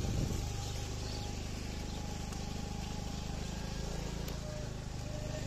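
Motor scooter engine running steadily while riding, with road and wind noise and a faint steady high whine.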